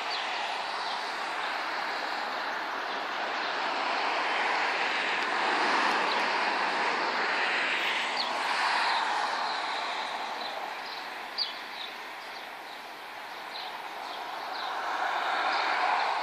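Cars passing on a residential street: a steady hiss of tyres and engines that swells and fades as each vehicle goes by.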